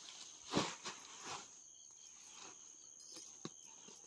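Insects shrilling in one steady high tone, with a few soft rustles and thumps over it, the loudest about half a second in.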